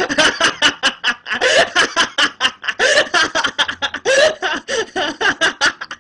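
A woman laughing hard and without pause in a quick run of breathy bursts, about five or six a second, which stops abruptly near the end.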